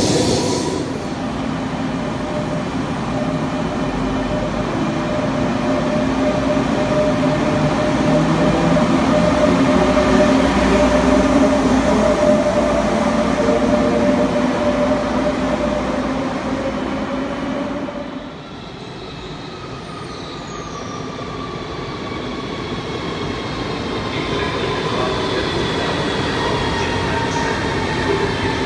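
High-speed electric trains in motion: a steady rumble with several held motor tones. After a cut about 18 s in, a train's electric traction motors whine in slowly gliding tones, growing louder toward the end.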